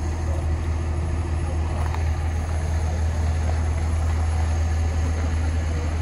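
Steady low drone of an idling engine, running evenly with no change in pitch.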